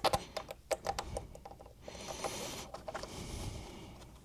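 Hands fitting speaker-cable jumpers to a loudspeaker's binding posts: a quick run of small clicks and taps for about two seconds, then a softer rustle.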